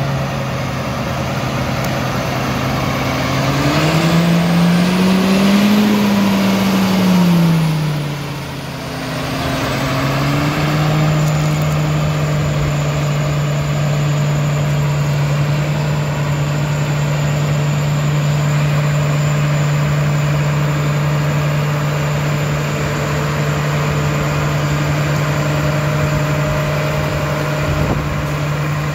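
2009 John Deere 8230 tractor's six-cylinder diesel engine idling, revved up a few seconds in and let back down, then holding a steady idle a little faster than at first. A faint high whine rises and falls with the revs.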